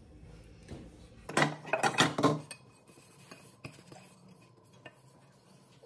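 Nonstick metal cooking pots clinking and knocking as they are handled and wiped dry with a cloth towel. There is a quick cluster of knocks about a second and a half in, then a few light taps.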